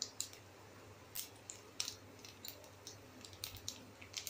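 Mustard and cumin seeds frying in hot oil in a kadai, crackling and popping in scattered sharp pops, two or three a second.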